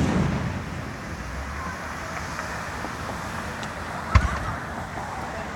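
Aerial fireworks display: the rumble of a shell burst fades away, then one more shell bursts with a sharp boom about four seconds in.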